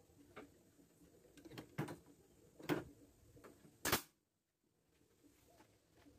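A few light knocks of wood being handled, then one sharp shot from a pneumatic nail gun about four seconds in, driving a nail into the wooden frame.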